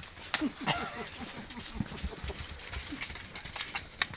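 Several horses milling about close by: hoof steps with scattered sharp knocks and clicks, and a short, low vocal sound that falls in pitch about half a second in.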